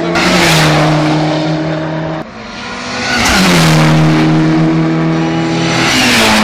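Hillclimb race cars passing one after another at speed. Each engine note drops in pitch as the car goes by, about three passes, and there is an abrupt cut about two seconds in.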